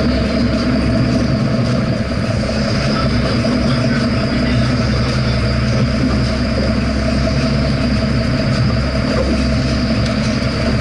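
Boat engine running steadily: a constant low drone with an even hum that does not change in pitch.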